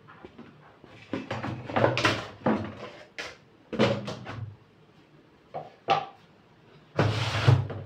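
Plastic containers and a large plastic drum lid being handled: a series of knocks, clunks and scrapes, the loudest a longer clatter near the end.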